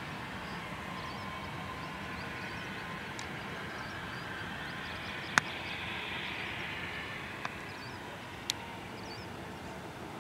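Distant business jet's engines whining and rushing as it comes in to land, the noise swelling a little about six seconds in, at touchdown. Three sharp clicks cut through, the loudest about halfway, with faint bird chirps.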